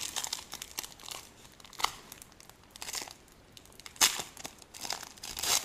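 Foil wrapper of a 2015 Select Soccer trading card pack crinkling and tearing as it is opened by hand, with sharp crackles about four seconds in and again just before the end.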